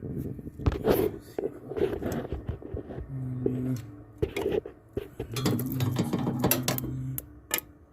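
Gas hot-water boiler going through its lighting attempt: sharp, irregular clicks from the spark igniter and a low steady hum that comes on twice, for under a second about three seconds in and then for about two seconds. The burner has not yet lit.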